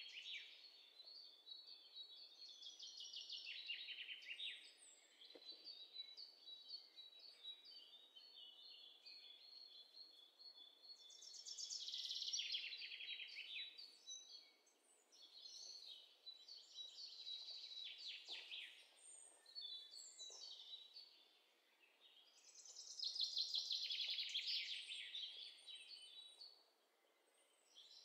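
Small birds chirping and twittering, faint, in rapid high trills, with louder bursts of trilled song about twelve seconds in and again near the end.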